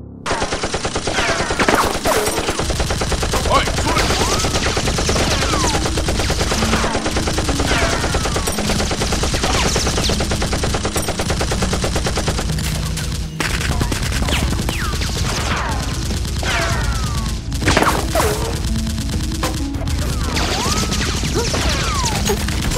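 Movie-style automatic gunfire sound effects: rapid shots in continuous bursts, with falling bullet whizzes laid over them and a short break about 13 seconds in.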